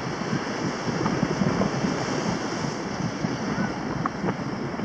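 Strong gusty wind buffeting the microphone over the wash of waves breaking against the rocks.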